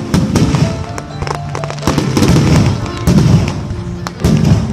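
Aerial fireworks bursting and crackling in quick, dense succession, over loud music playing.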